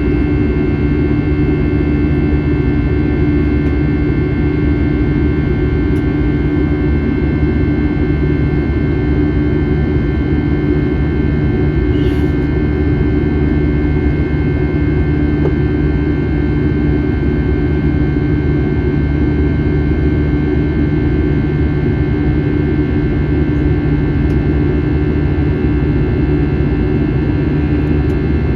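Airbus A321 jet engines running steadily, heard from inside the passenger cabin: an even drone with several steady whining tones over it. There is a faint click about twelve seconds in.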